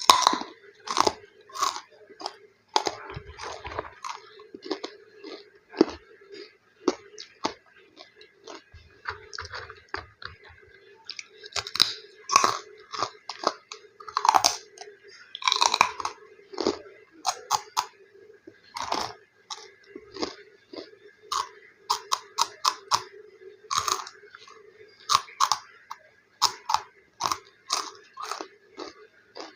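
Close-miked crunching and chewing of crispy snacks, with many quick, irregular crunches as the snacks are bitten and chewed.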